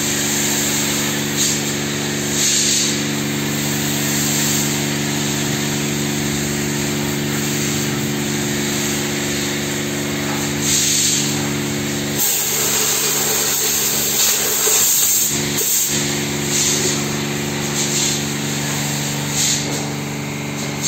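A motor-driven machine running with a steady drone that drops out for a few seconds about twelve seconds in, with short hissing bursts over it several times.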